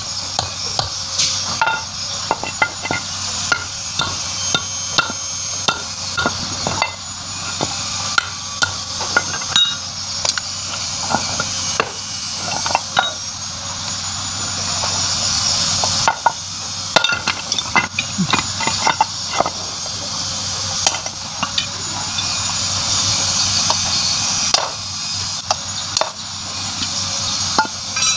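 Irregular metal knocks and clinks of hand tools striking and prying at a Yamaha 100 motorcycle engine being taken apart, over a steady hiss.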